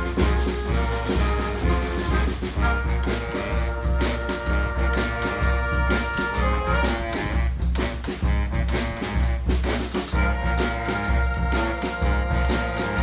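Brass band playing an upbeat piece: horns holding chords over a steady drum beat and a deep bass line.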